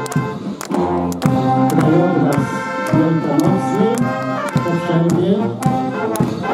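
Brass band playing a march, with a steady drumbeat about twice a second and voices over it.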